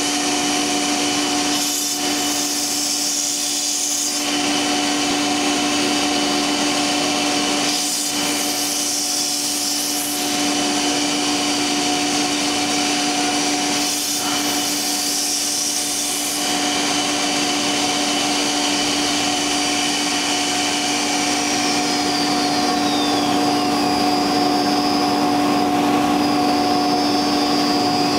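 Two-spindle CNC router running: the spindle motors give a steady whine while the bit cuts slots in a wooden panel, with a hiss that shifts every few seconds as the cut changes. Near the end a higher tone falls and then rises.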